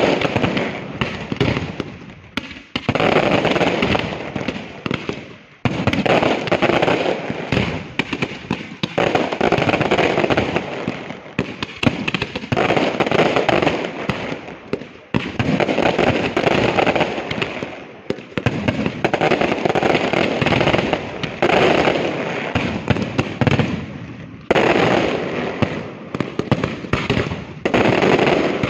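Aerial fireworks display: dense volleys of shell bursts and rapid bangs, surging in waves about every three seconds, each wave starting suddenly and fading off.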